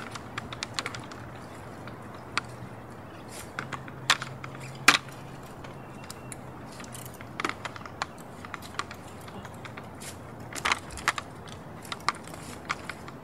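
Mountain bike rattling and clicking as it is lifted and manoeuvred over a barrier pole: a string of irregular sharp clicks and knocks, the loudest about four and five seconds in and again near eleven seconds.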